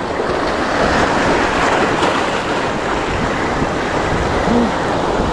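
Surf washing over a rocky reef shoreline: a steady rush of breaking and draining water, with wind on the microphone.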